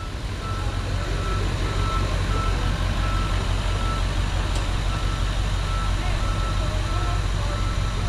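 Backup alarm on a Case wheel loader beeping repeatedly at one steady pitch, broken off briefly about halfway, over the low drone of its diesel engine.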